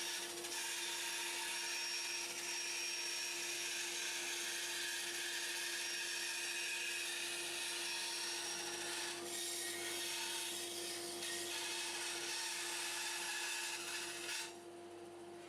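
Hobby bandsaw with a 16-teeth-per-inch blade cutting 3 mm aluminium sheet: a steady hiss of the blade through the metal over the hum of the saw's motor. The cutting sound drops away sharply about a second before the end, leaving the motor running.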